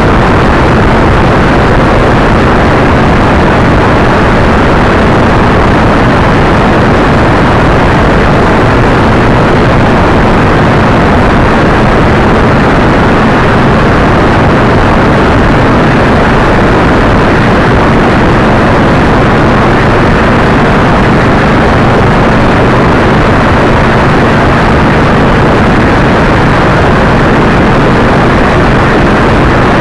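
Loud, steady wind roar on the microphone mixed with road and engine drone from a vehicle travelling at highway speed.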